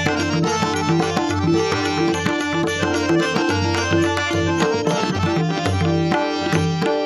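Instrumental interlude of a Marathi devotional abhang: tabla playing a steady rhythm under sustained melodic notes.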